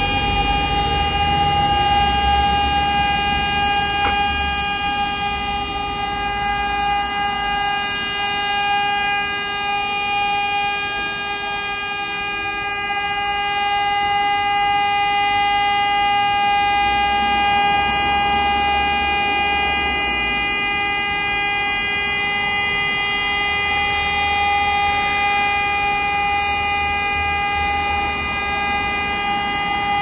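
Civil air-defence siren sounding one long steady tone at a fixed pitch, swelling and fading slightly in loudness, over the low noise of street traffic. It is the annual September 18 air-raid siren sounded across Chinese cities in memory of the 1931 Mukden Incident.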